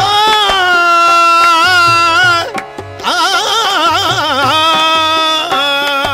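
Qawwali singing: a male voice holds two long sung notes over tabla, with a short break about halfway. The second note is ornamented with fast wavering turns.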